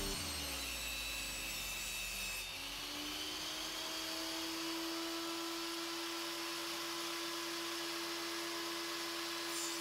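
Benchtop table saw running after a cut through a plastic sheet: the heavy low rumble of the cut fades in the first second, then the motor runs on without load with a steady hum that rises briefly and settles, while the sheet is slid across the saw table.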